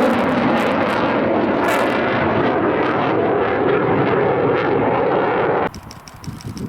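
Loud, steady jet noise from an F-15E Strike Eagle's twin turbofans flying low; its high hiss thins out after about two seconds. It cuts off abruptly near the end, leaving a much quieter background.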